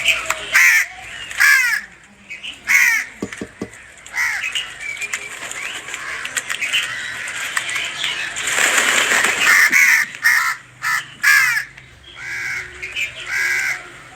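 Crows cawing repeatedly in short, harsh calls, with a few knocks and a second-long noisy rush about nine seconds in.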